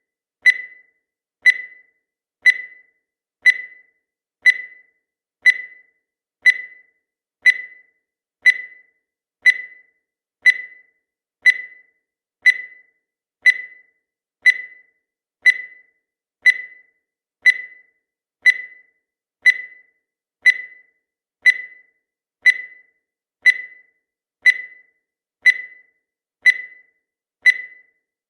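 Countdown timer sound effect: a short, high beep once every second, each starting sharply and fading quickly, marking off the seconds at an even pace.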